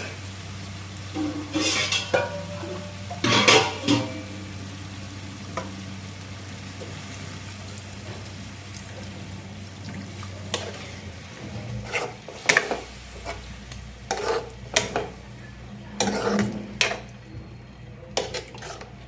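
A spoon stirring and scraping chicken curry in a kadai, with irregular clinks against the pan over a steady sizzle, just after water has been added to the curry.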